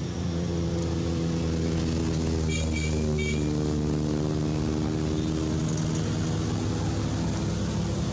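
An engine running steadily at one pitch, with a few short high chirps about three seconds in.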